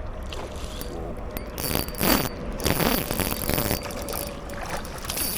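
Short bursts of splashing water about two and three seconds in, over a steady low rumble, as a hooked smallmouth bass is fought at the surface of the river.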